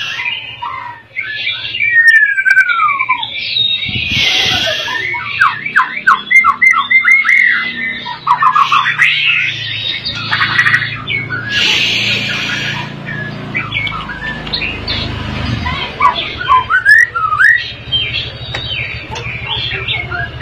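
Caged white-rumped shama singing a long, varied song of rapid canary-style trills, whistled down-slurs and up-sweeps, broken by harsh rasping bursts, the loudest about four seconds and twelve seconds in. The bird is worked up and copying canary song.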